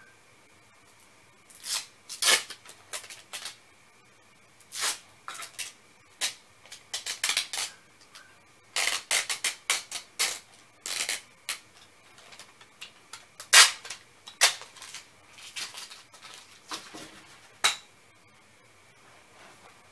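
Packing materials and cardboard shipping boxes being handled: irregular runs of crinkling, crackling and sharp clicks and knocks, with short pauses between.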